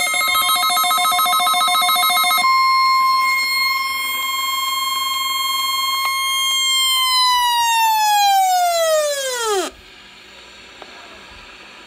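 Electronic siren-like tone held at a steady high pitch, then gliding down and cutting off abruptly about ten seconds in, leaving a faint hiss. For the first couple of seconds a rapid pulsing beep sounds over it.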